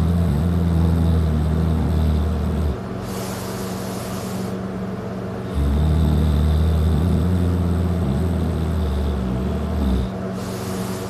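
Heavy, loud snoring of a man passed out drunk on his back: two long, low-pitched snores a few seconds each, each followed by a short breathy rush of air.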